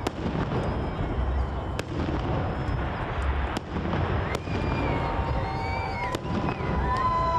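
Fireworks salute going off: sharp bangs every second or so over a continuous rumble and crackle of bursting shells, with whistling tones rising in the last two seconds.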